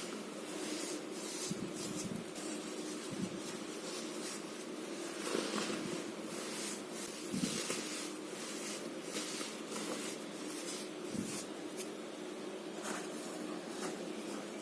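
Baking soda and cornstarch mixture being crushed: irregular crunches and squeaks, several a second, some louder than others.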